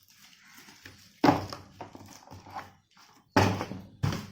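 Handling noise from a badminton racquet's full cover and its packaging: three sharp knocks, about a second in and twice near the end, with soft rustling between them.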